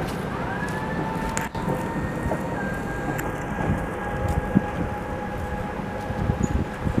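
Tatra T3 trams rolling slowly around a tight turning loop, with steady high-pitched squealing tones held for several seconds over a low rumble, typical of steel wheels squealing on a sharp curve. A single sharp click about a second and a half in.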